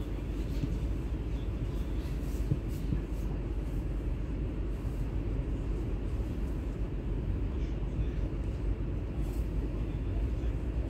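Steady low rumble inside the passenger car of an ES2G Lastochka electric train running between stations, wheels on rail, with faint scattered clicks.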